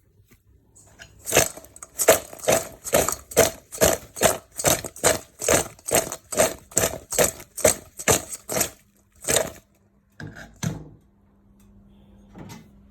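Fried cassava chips being tossed with spice powder in a bowl: a crisp rattling, about two to three tosses a second for some eight seconds, then two more after a short pause.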